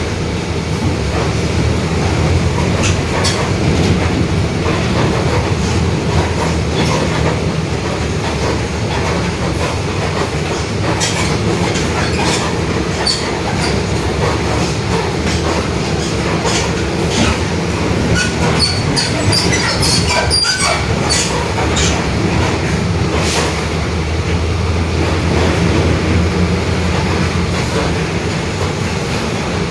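Mercedes-Benz OF-1721 BlueTec 5 city bus under way: its diesel engine and drivetrain run with a steady low drone and a growling differential. Rattles and sharp clicks from the body come and go, thickest in the middle stretch.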